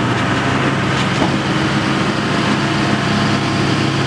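Heavy diesel engines of a wheel loader and a bogged-down tanker truck running steadily as the loader pushes the truck through deep mud.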